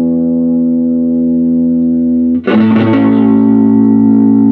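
Electric guitar chord ringing out through a 1956 Gibson GA6 tube amp, its microphone-channel volume turned fully up, with a fairly clean tone that breaks up only slightly. A second chord is struck about two and a half seconds in and held until it is damped at the end.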